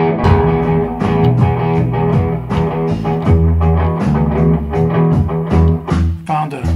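Instrumental blues-rock music: a Fender Stratocaster electric guitar playing a riff over a Music Man StingRay bass line, with a slow sampled hip-hop drum beat underneath. The bass notes are loud and prominent.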